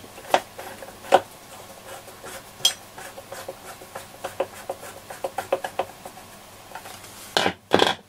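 Screwdriver working the screws on the back of a Trio R1000 receiver's metal case: scattered metallic clicks and clinks, with a quick run of small ticks in the middle as a screw is turned. Two louder scraping noises come near the end.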